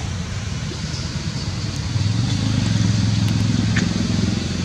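A steady low engine drone, growing louder about two seconds in, with one faint click near the end.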